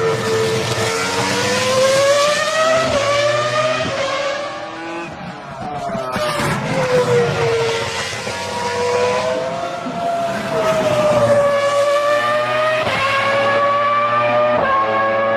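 Ferrari F2004 Formula One car's 3-litre V10 engine at high revs, its high note rising and falling as the car accelerates and slows, with sharp breaks at gear changes about 3 seconds in and again twice near the end.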